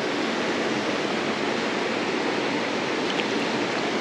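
Flowing river water rushing steadily, an even hiss that does not change.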